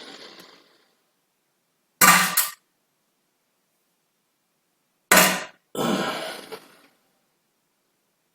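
Farts: a short sharp one about two seconds in, then two more back to back about five seconds in, the second longer and trailing off.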